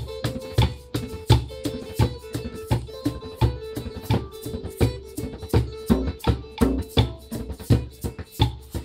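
Live cumbia jam: a hand drum beats a steady rhythm under the sound of a small shaken or scraped percussion instrument, while an electronic keyboard plays a stepping melody and an acoustic guitar accompanies.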